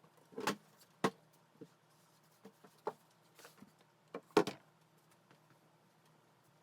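A few sharp knocks and clacks of objects being handled and set down, loudest about half a second in and again at about four and a half seconds, over a faint steady hum.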